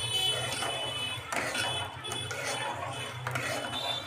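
A steel ladle stirring thin soup in a metal pot: liquid swirling and sloshing. A light metallic ring comes from the pot in the first second and again near the end, over a steady low hum.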